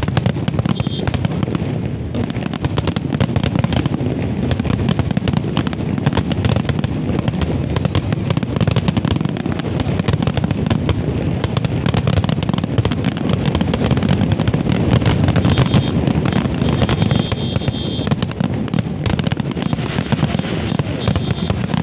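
Fireworks display in full barrage: a dense, continuous volley of bangs and crackling with no pause.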